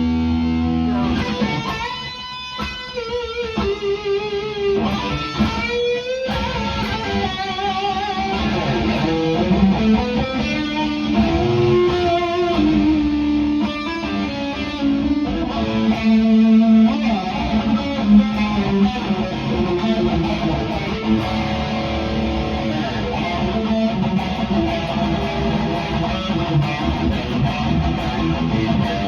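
Instrumental break in a metal song: an electric guitar plays a lead line with gliding bends and quick runs over the band.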